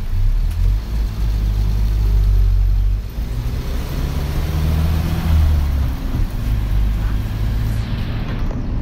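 Low, steady engine and road rumble of a moving motor vehicle. The engine note rises a little about four seconds in, then settles.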